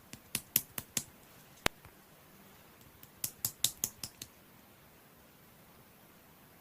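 A series of sharp clicks or taps in two quick runs, about five in the first second and six more a little after three seconds, with a single click between them; after that only a faint steady hiss remains.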